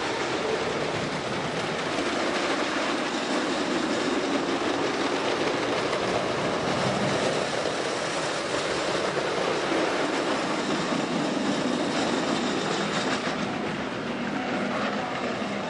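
Wooden roller coaster train running along its wooden track, a continuous rumble that grows louder through the middle and eases off near the end.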